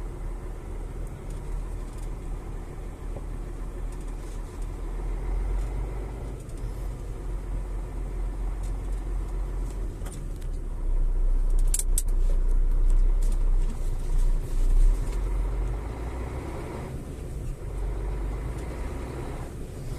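Methane-fuelled truck's engine running at low speed while the truck is manoeuvred, heard from inside the cab as a steady low rumble. It grows louder for a few seconds midway, with a few sharp clicks.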